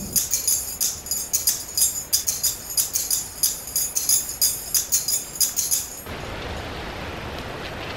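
Background music carried by a bright, high percussion rhythm at about three beats a second. It cuts off abruptly about six seconds in, leaving a steady outdoor hiss.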